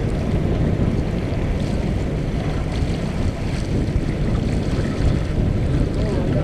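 Steady rush of wind on the microphone and water along the hull of a Mumm 36 racing sailboat under way, deepest in the low end.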